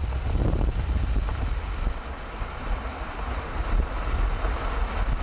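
Wind buffeting the microphone: a gusting low rumble, stronger in the first couple of seconds and easing a little after.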